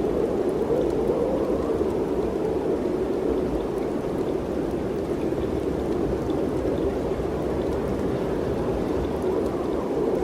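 Mountain wind rushing steadily, with slow gentle swells and a low rumble underneath.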